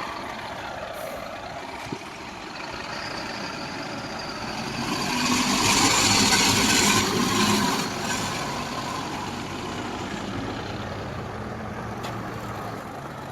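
Heavy diesel machinery running steadily as an excavator works, swelling louder with a rushing noise for about three seconds in the middle.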